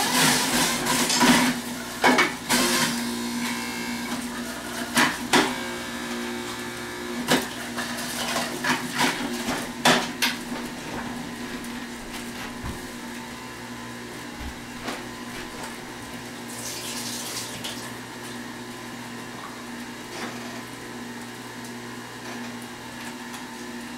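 Centrifugal juicer motor running with a steady hum while produce is pushed down the feed chute. Sharp clattering knocks come from the produce and the plastic pusher, most of them in the first ten seconds, then thinning out.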